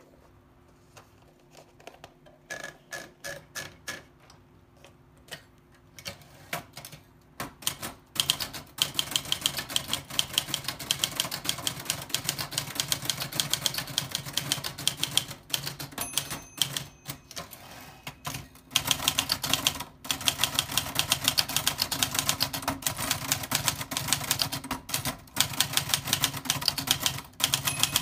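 Old typewriter being typed on: scattered single keystrokes for the first several seconds, then fast, continuous typing with a few short pauses.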